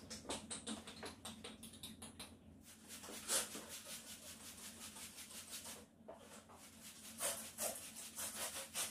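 Cloth wiping a bathroom sink counter in quick rubbing strokes, with a few short hissing sprays of cleaner from a trigger spray bottle.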